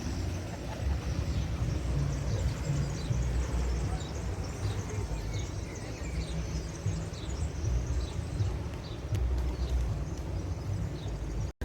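Outdoor ambience with a steady, uneven low rumble and small birds chirping in short, repeated calls.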